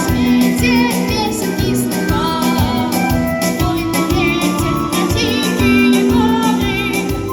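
Background music with a steady beat and a melody line, a pop-style backing track.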